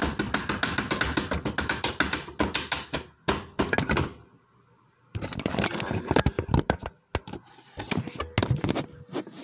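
Drumsticks playing a fast beat on a drum setup with no backing music: rapid dull thunks and taps, pausing briefly about four seconds in and again around seven seconds in.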